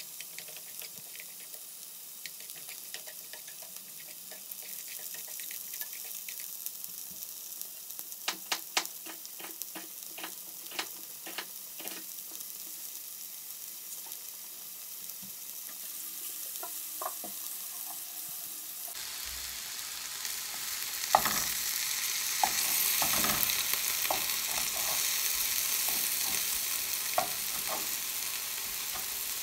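Onion and mixed vegetables sizzling in a frying pan, with a cluster of light clicks of utensils against the pan. About two-thirds of the way through the sizzle grows louder as the vegetables are stirred with chopsticks.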